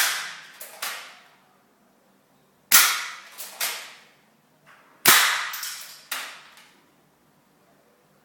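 Airsoft gun firing three single shots about two and a half seconds apart, each a sharp crack with a short tail, followed under a second later by a smaller knock.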